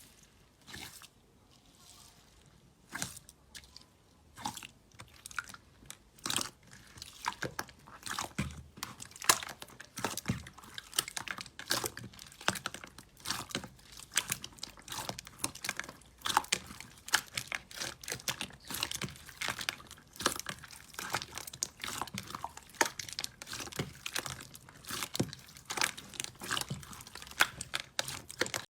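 Slime being squeezed and worked by hand, giving a dense run of crackling, popping clicks. It is sparse at first and becomes thick and continuous from about six seconds in.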